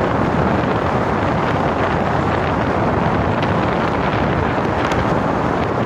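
Steady wind rushing over the microphone of a moving car, mixed with road and engine noise.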